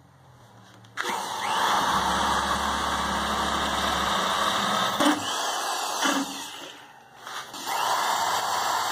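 Corded electric drill running a hole saw through a scrap-wood board to cut out a round wheel blank. It starts about a second in, runs steadily with a couple of knocks, dies away around the seventh second, then starts cutting again.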